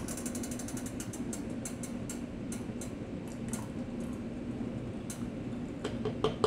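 Quick, irregular clicks and gritty scrapes of salt being worked in a glass jar of hot water, dense for the first two seconds and then scattered, over a steady low hum.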